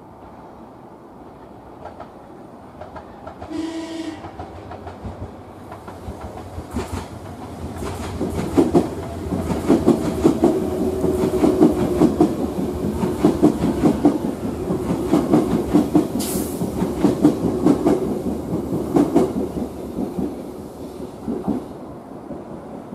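Sotetsu 10000 series electric train pulling out slowly, its wheels clacking over rail joints in a loud irregular run from about eight seconds in, then easing off near the end. A short horn blast sounds about three and a half seconds in.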